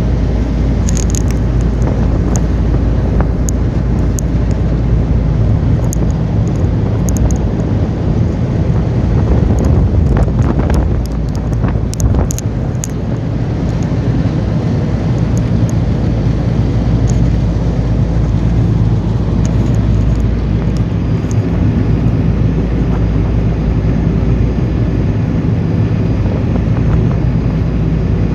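River ferry's engine running steadily with a low hum, heard from the back of the boat, with wind buffeting the microphone and a few brief crackles.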